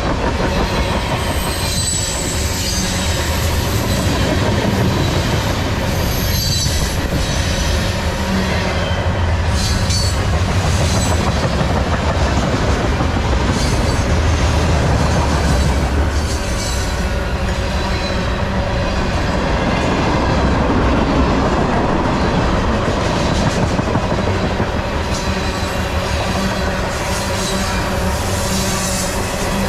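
Freight cars of a CSX manifest train rolling past at close range: a steady rumble and clatter of steel wheels on the rails, with high-pitched wheel squeal coming and going.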